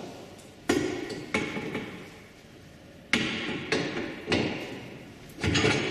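Metal knocks as the supporting arm of a Shernbao PWD-919 finishing dryer is fitted onto the post of its wall bracket. There are about six sharp clanks at uneven intervals, each ringing briefly.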